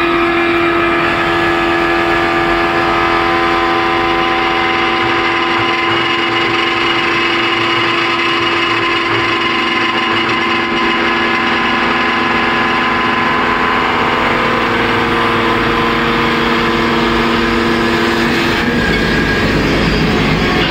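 Automatic wood lathe turning a wooden chair leg, its electric motors and drive running with a loud, steady hum of several tones over a rushing noise. The tones shift to new pitches about eighteen seconds in.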